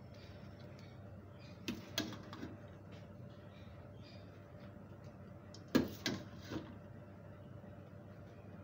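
A metal utensil knocking against the karahi a few times as a layer of boiled rice is spooned over the korma: two clicks about two seconds in and the loudest clink near six seconds, over a steady low hum.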